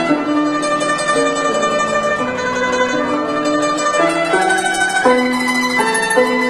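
Guzheng solo: a melody of held notes that change pitch every half second or so, each note sustained by fast tremolo plucking (yaozhi).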